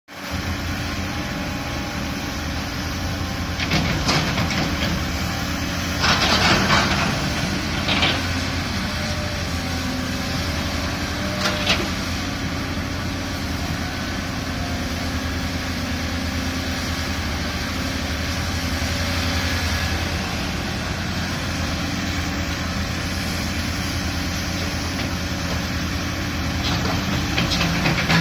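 Diesel engine of a Caterpillar excavator running steadily while it digs, with a few short louder noises in the first half.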